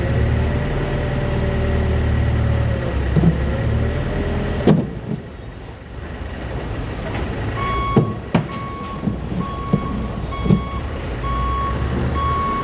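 Heavy diesel site vehicle's engine running with a wavering whine, cut by a sharp knock about five seconds in. From about seven and a half seconds a reversing alarm beeps at a steady pitch, roughly one and a half beeps a second, with a few metallic knocks.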